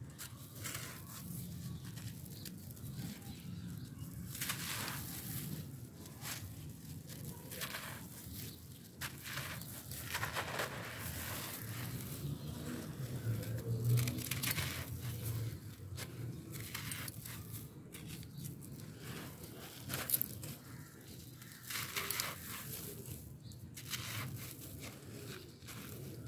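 Clumps of dry gray gravelly sand crunching as bare hands squeeze and crumble them, with grit trickling back onto the pile. The crunching comes in irregular bouts, with a sharp crack about twenty seconds in.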